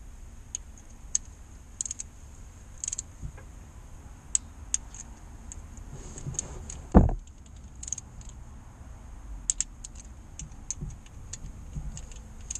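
Socket wrench ratchet clicking in short, irregular runs as the bolts of the crankshaft oil seal housing are run in, with one dull knock about seven seconds in.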